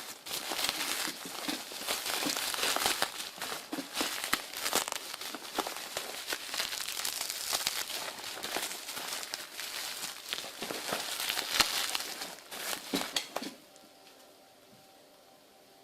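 Packaging being handled and unwrapped, crinkling and crackling irregularly with sharp little clicks. It stops abruptly near the end, leaving a faint steady hum.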